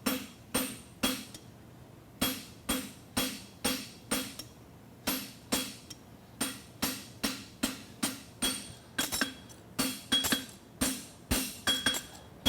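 Farrier's hammer striking red-hot steel bar stock on an anvil at a steady pace of about two blows a second, each blow ringing, with a short pause about a second and a half in. He is scarfing the shoe's end on the anvil's soft edge to prepare it for a forge weld.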